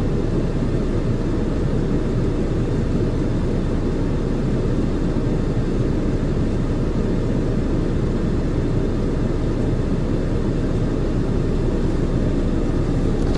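Steady low rumble of a car being driven, road and engine noise holding an even level.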